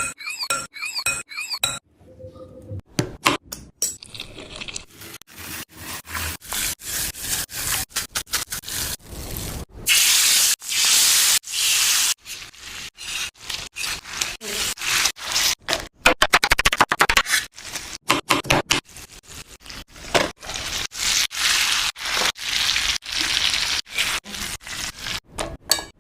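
Chicken frying in a pan: hot oil sizzling, with a utensil scraping and clinking against the pan. The sound comes in many short pieces, broken off by brief gaps every fraction of a second.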